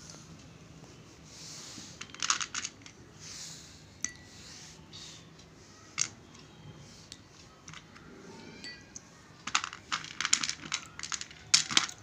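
Hard, dry chunks of butter gray clay clicking against a ceramic plate and a glass bowl as they are handled and dropped into water: a quick cluster of clicks about two seconds in, a single click near the middle, and a longer run of clicks near the end.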